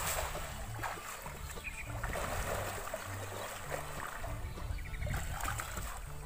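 A cast net hits the water with a splash right at the start, followed by water sloshing and trickling as it is hauled in through the river.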